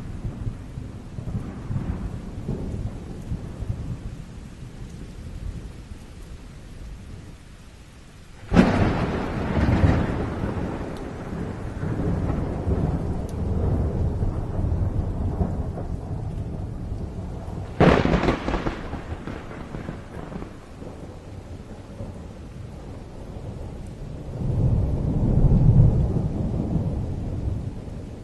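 Thunderstorm with steady rain. Two sharp thunderclaps break out about eight and eighteen seconds in, each rolling off into rumble, and a long low roll of thunder builds near the end.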